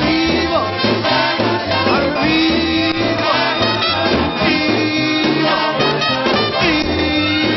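Swing-style band music in an instrumental break: a steady pulsing bass line under long held notes that slide up into pitch, four times over.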